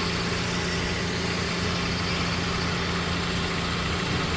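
A 2009 Hyundai Sonata's four-cylinder engine idling steadily with fresh oil, heard from underneath the car while it is checked for leaks.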